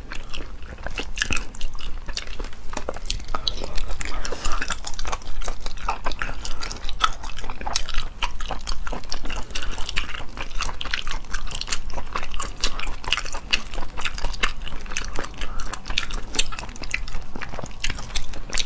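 Close-miked wet chewing and biting of spicy shellfish, with many short sharp clicks coming thick and irregular throughout.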